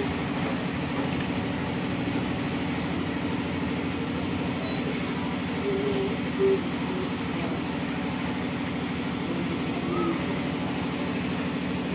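A steady low machine drone runs throughout. A few brief faint pitched sounds rise over it, near the start, about six seconds in and about ten seconds in.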